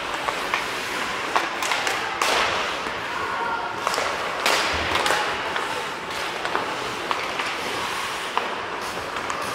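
Ice hockey play echoing in an indoor rink: skates scraping on the ice, several sharp clacks of sticks and puck, and players calling out.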